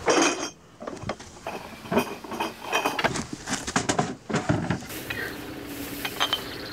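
Wooden wine crates and glass wine bottles being handled and set down: a loud clatter at the start, then a run of irregular wooden knocks and light glass clinks.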